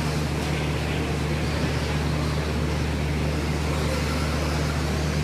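Radio-controlled stock trucks racing on a dirt track, heard as a wash of noise over a constant low hum.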